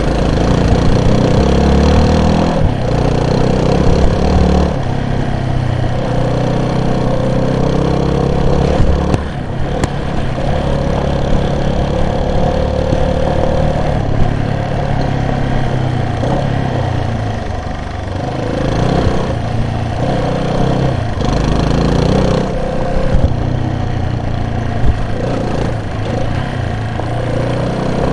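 A vehicle's engine running while driving, its pitch stepping up and down as the revs change.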